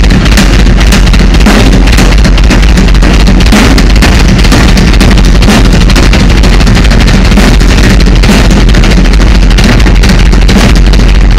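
Drum kit solo played live, a dense run of fast strokes on drums and cymbals over a steady heavy bass drum, recorded so loud that the sound is distorted.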